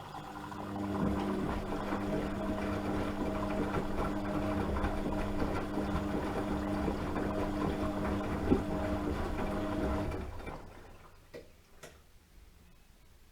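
Washing machine motor running with a steady hum as the drum turns. It winds down and stops about ten seconds in, followed by a couple of faint clicks.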